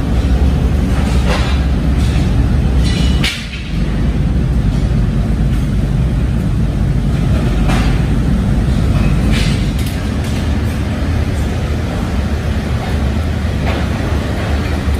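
Heavy factory machinery in a leaf spring works running with a steady low rumble, broken a few times by sharp clanks.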